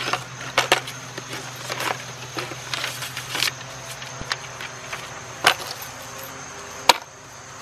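Irregular clicks and light knocks of the solar wall light, its remote and mounting hardware being handled and set down, over a faint steady hum.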